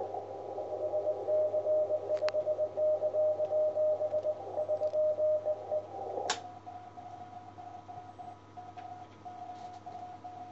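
Morse code (CW) from an amateur radio transceiver: a steady-pitched tone keyed rapidly on and off. After a click about six seconds in it gives way to a fainter signal at a slightly higher pitch.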